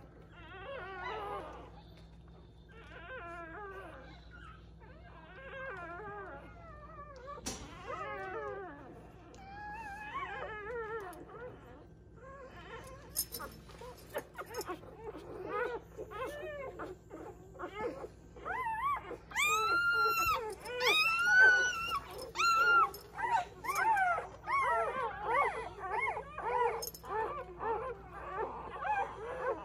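Newborn English setter puppies squeaking and whimpering: many short, high calls that rise and fall in pitch, growing denser and louder about halfway through, with the loudest drawn-out squeals around twenty seconds in.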